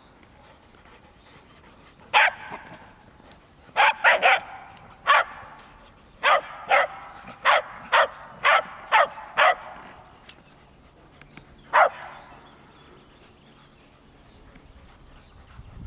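A dog barking: about a dozen short, sharp barks, some in quick pairs and threes, starting about two seconds in and stopping about twelve seconds in.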